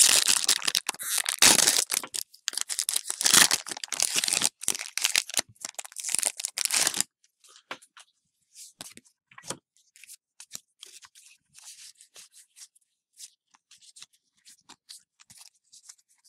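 A foil Pokémon card booster pack wrapper being crinkled and torn open by hand, a loud ripping and crackling for about seven seconds. After that come only faint rustles and light ticks as the cards are handled and fanned out.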